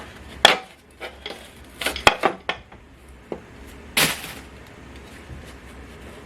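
Parts of a 1966 Mustang heater box being handled while the old seal is worked off: a string of light clicks and knocks, then a short scraping rasp about four seconds in, the loudest sound.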